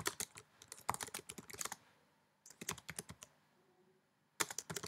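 Typing on a computer keyboard: quick runs of keystroke clicks as a name is typed, in three spells with short pauses between them.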